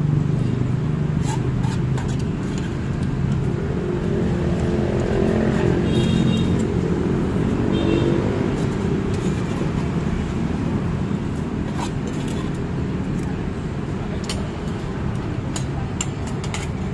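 Steady low background din with indistinct voices, and a few light metallic clicks from metal spoons against an aluminium ramyeon pot.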